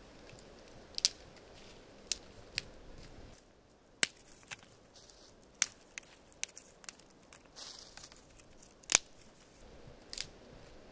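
Small dry twigs snapping by hand, about eight sharp cracks at irregular intervals, the loudest near the end, with a short scraping rustle shortly before it.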